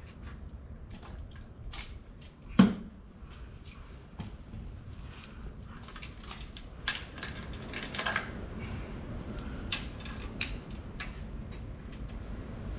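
Scattered light clicks and taps of parts and hand tools being handled while switches are fitted, with one louder knock about two and a half seconds in, over a steady low rumble.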